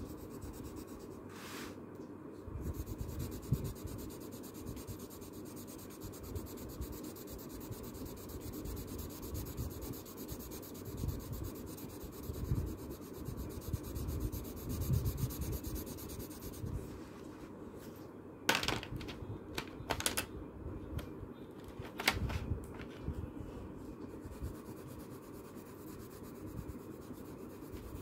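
Colour pencil scratching on paper in irregular back-and-forth shading strokes, with a few sharp clicks about two-thirds of the way through.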